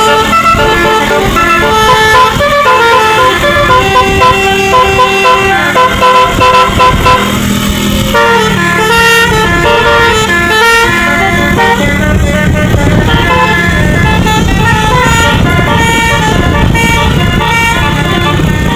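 Basuri telolet multi-tone horn on a tour bus playing a tune as a continuous run of stepped horn notes. A steady low drone runs beneath it.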